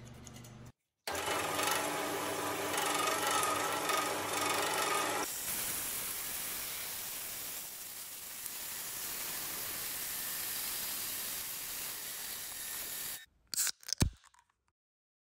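Horizontal metal-cutting bandsaw cutting through a bundle of four square steel tubes: a ringing, whining tone for the first few seconds, then a steady grinding hiss from the blade in the steel. A few sharp clicks come near the end, then the sound stops.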